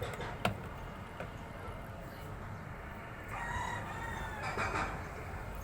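A rooster crowing once, a drawn-out call about three seconds in that lasts around a second and a half, with a light click near the start.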